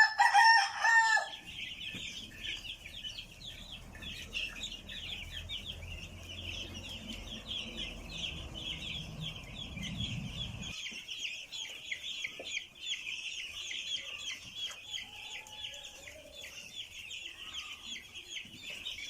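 A flock of week-old chicks peeping continuously, a dense mass of short high chirps. A loud adult chicken call lasts about a second at the start, and a low hum under the flock stops abruptly about eleven seconds in.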